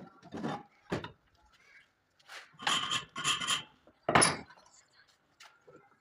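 Wood being worked by hand: a few short knocks, then two longer scraping strokes and a loud knock a little after four seconds.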